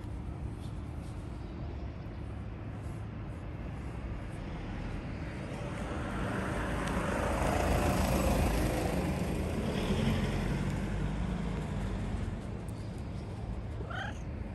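A road vehicle passing by, its noise swelling for several seconds and then fading, over a steady outdoor rumble. A brief rising chirp-like call near the end.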